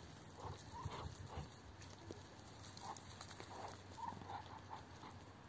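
Muscovy ducks and hens making short soft calls, scattered at first, then several in quick succession near the end.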